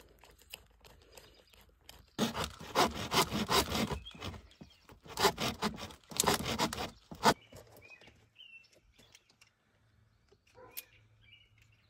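Hand saw cutting through black plastic water pipe: quick back-and-forth rasping strokes starting about two seconds in, with a brief pause midway, stopping abruptly after about five seconds.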